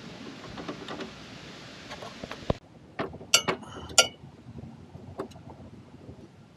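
Allen key clinking against the steel mid-control footpeg mount of a Harley Sportster while a loose bolt is tightened: a few sharp metal clicks, the loudest about three and a half and four seconds in, after a steady hiss.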